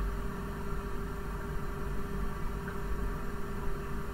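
Steady low hum with a faint hiss: background noise of the recording setup, with no other event standing out.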